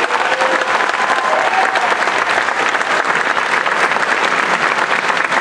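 Audience applauding: dense, steady clapping from a full house.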